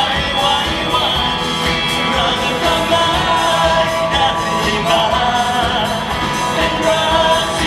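Live band playing a song, with a lead singer's voice over the instruments.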